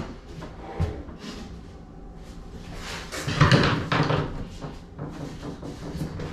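Knocks and scraping of a wooden bathroom vanity cabinet being handled, with a few light knocks early and a louder cluster of bumps and scrapes about three and a half seconds in.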